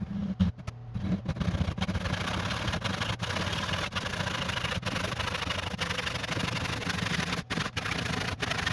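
A saw cutting through a pallet-wood board: a steady, noisy cut that picks up about a second in.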